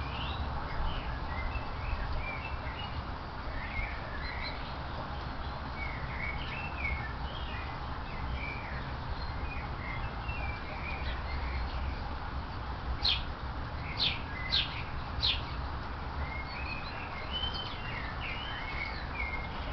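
Small songbirds chirping and twittering on and off throughout, with a few sharp, short ticks or calls in quick succession about two-thirds of the way in.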